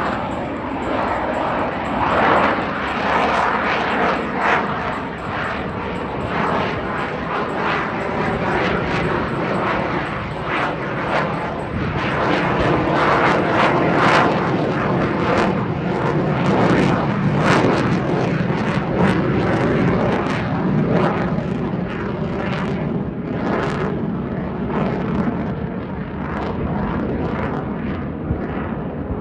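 F-22 Raptor's twin Pratt & Whitney F119 turbofans on afterburner: a loud, continuous jet roar full of crackle, loudest about halfway through.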